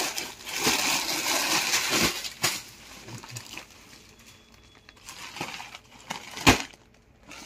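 Plastic-wrapped saree packets and a clear plastic zip bag crinkling as they are handled and moved, with a few soft knocks. Near the end comes a single loud thump.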